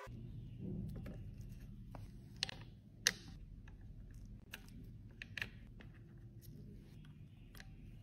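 Scattered light clicks and taps of small makeup pans being pressed by hand into a plastic compact palette, the sharpest about three seconds in, over a steady low hum.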